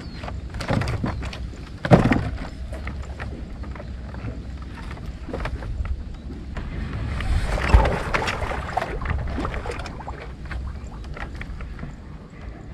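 Knocks and thumps of feet and gear on a wooden boat deck, with a loud thump about two seconds in and a rustling scuffle with a sharp knock around eight seconds, over a low steady rumble.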